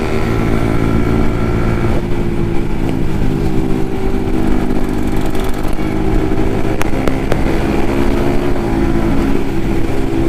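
Yamaha MT-15 single-cylinder engine running steadily while cruising, heard over wind rumble on the microphone. A few brief clicks come about seven seconds in.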